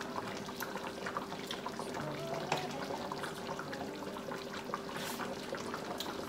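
Pot of chicken afritada in tomato sauce simmering on a gas burner, the sauce bubbling with small irregular pops. A faint steady hum runs underneath.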